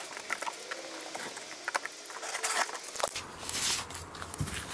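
Cardboard box being handled and opened: irregular knocks, clicks and scraping rustles of cardboard, with longer scrapes about halfway and a little past three seconds in.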